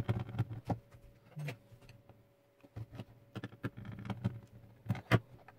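Scattered small clicks and light knocks of hands handling a Tooltop ET8134 multimeter's plastic case, working at its battery cover.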